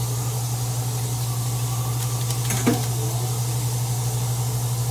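A steady low hum over a faint even hiss, with one brief pitched sound a little past the middle.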